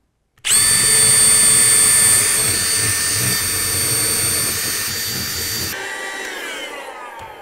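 Cordless drill boring a cable hole through a model railway baseboard, followed by a handheld vacuum sucking up the drilling dust. A steady whirring whine starts suddenly about half a second in, changes about two-thirds of the way through, and then falls steadily in pitch as a motor winds down.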